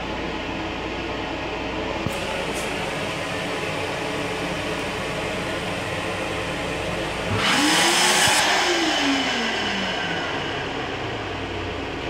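High-speed electric hand dryer switching on for a short run: its motor spins up with a loud rush of air about seven seconds in, then winds down with a falling whine over about two seconds. Under it, the steady running noise of the moving railcar.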